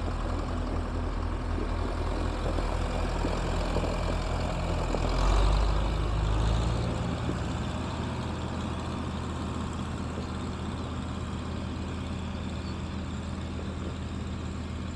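John Deere diesel tractor engine running steadily as the tractor drives past, loudest about five seconds in, then a little quieter as it pulls away.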